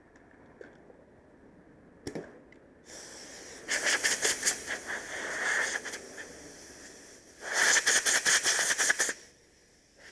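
Pressurized air or gas hissing out in two bursts, the first about three seconds long and the second about two, each fluttering rapidly; a short click comes before them.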